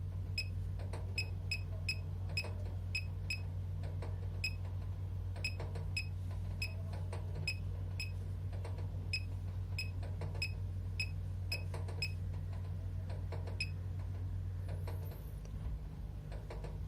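Short electronic key-click pings from typing on a laser projection keyboard, one per keystroke, coming irregularly a few times a second. A steady low hum runs underneath and drops about 15 seconds in.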